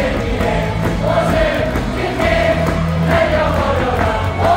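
Stadium crowd singing a cheer song together over loud amplified music, long drawn-out sung notes above a steady bass line.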